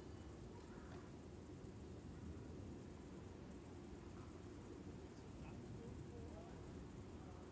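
Faint, high-pitched insect chirring, steady and rapidly pulsing, with a brief break about three and a half seconds in, over a low outdoor background rumble.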